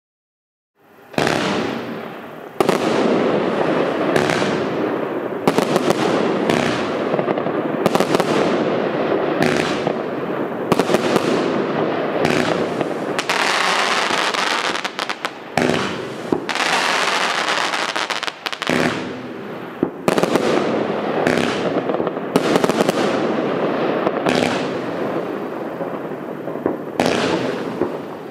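A 140-shot consumer firework cake with 25 mm and 30 mm tubes firing, starting about a second in. Sharp launch reports come every second or so over a continuous dense hiss and crackle from the burning effects.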